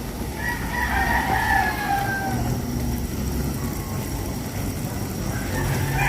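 A rooster crowing: one crow of about two seconds starting half a second in and falling away at its end, and a second crow beginning near the end. Both sound over a steady low rumble.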